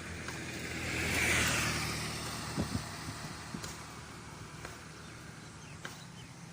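A road vehicle passing close by. Its noise swells to a peak about a second in and then fades, over a low steady engine hum.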